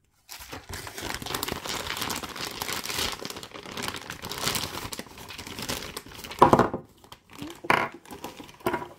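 Clear plastic zip-lock bag and bubble wrap crinkling as crystals are taken out and unwrapped: dense, continuous crinkling for about six seconds. A single louder sound comes about six and a half seconds in, followed by a few sparse, softer rustles.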